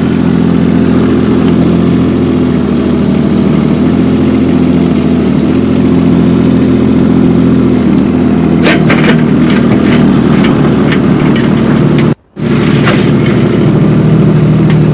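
Kubota mini excavator's diesel engine running steadily as it drives. From about halfway, sharp clanks and knocks come as its rubber tracks climb the aluminium loading ramps. The sound cuts out for a moment shortly after.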